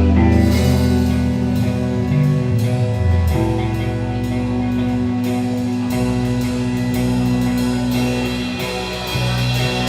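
Rock music: a band with drum kit, electric guitar and bass playing steadily, the drums keeping a regular beat under sustained guitar notes.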